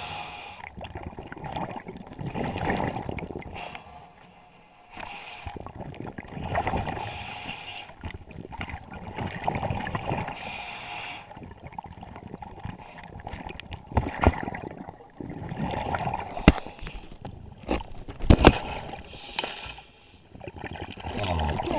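Heard underwater: a scuba diver breathing through the regulator, gurgling bubbles swelling and fading in cycles a few seconds apart. Several sharp knocks come in the second half.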